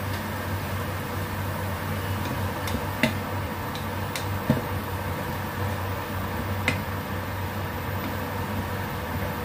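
Wooden spatula knocking a few times against a non-stick saucepan as tomatoes in oil are stirred. Under it is a steady hum and hiss from the induction cooktop.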